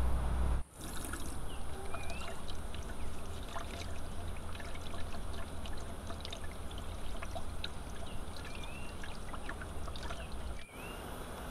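Water splashing and trickling with many small drips and clicks, and a few short bird chirps.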